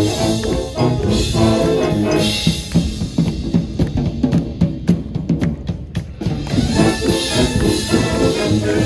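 Marching band playing: brass chords over snare and bass drums. About three seconds in the brass drops out for a short drum-only break of rapid strokes, then the brass comes back in.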